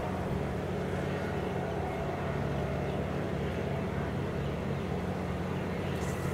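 A Kubota DC70 combine harvester converted into a tiller, its turbocharged 70-horsepower 2403 diesel engine running steadily at high revs under load while it tills a flooded rice paddy.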